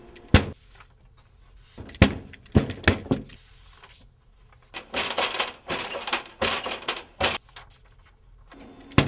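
Photocopier at work: a few sharp clunks and clicks, then a couple of seconds of clattering mechanical noise as the machine runs, and one more click near the end.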